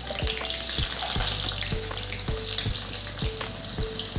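Sliced onions sizzling and frying as they are dropped into hot oil in a metal kadhai, a continuous crackling hiss.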